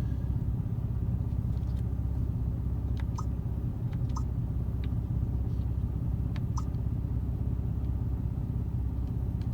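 Steady low rumble of an idling vehicle engine, with a few faint short chirps over it.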